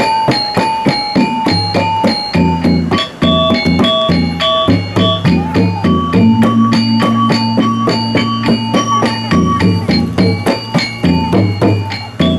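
Balinese gamelan gong kebyar music: bronze metallophones playing fast, even runs of struck notes, several a second, over drum strokes. A deep sustained tone rings underneath for about three seconds midway.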